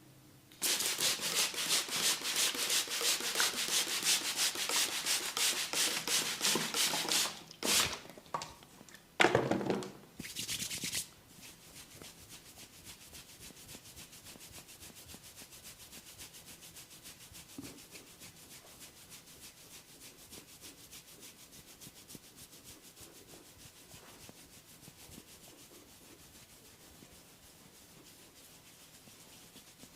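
Rapid scratching and rubbing of hair and scalp in a head massage, close to the microphone: loud and dense for about seven seconds, then a few short bursts, and from about eleven seconds in it carries on much fainter.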